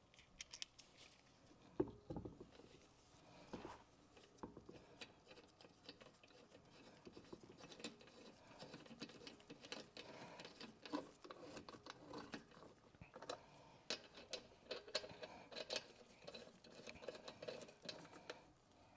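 Near silence with scattered faint clicks and taps, the loudest about two seconds in, coming more often in the second half.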